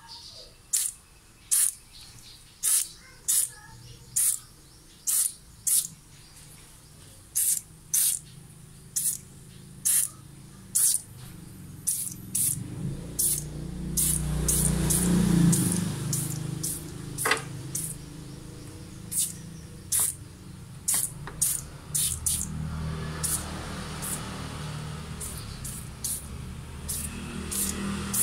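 Aerosol foam engine cleaner sprayed in short bursts, a quick sharp hiss roughly once a second, over and over. A low rumble swells up in the middle and again near the end.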